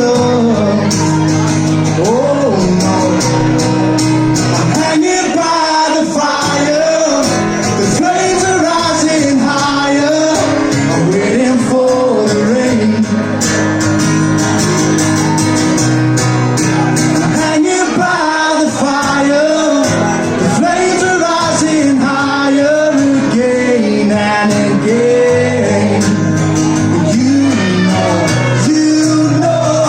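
Live rock band performance: a male voice singing over guitars, bass and drums, with the reverberation of a small venue.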